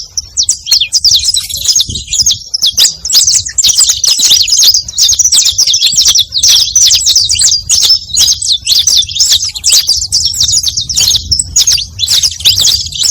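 Saffron finch (canário-da-terra) singing: a rapid, continuous run of high chirps and trills, broken by a few short pauses.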